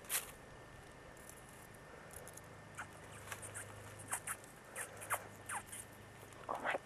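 Young wild canine pup in its den giving short, high squeaks that drop quickly in pitch, about half a dozen spread over the seconds, the loudest and longest near the end. A sharp click sounds just at the start.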